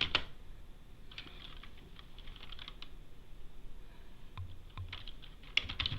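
Typing on a computer keyboard in short bursts of rapid key clicks: a quick run at the start, another about a second in, a few single keystrokes in the middle, and fast typing again near the end.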